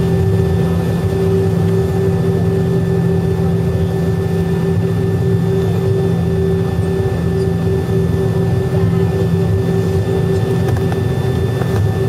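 Airliner's jet engines heard from inside the passenger cabin: a steady drone with a fixed whine over it, holding pitch as the plane rolls along the ground.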